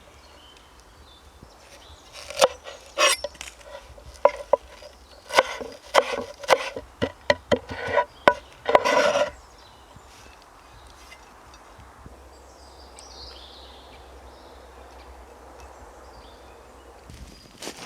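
A run of irregular scraping and knocking strokes on wood, lasting about seven seconds, followed by only a faint, even outdoor background.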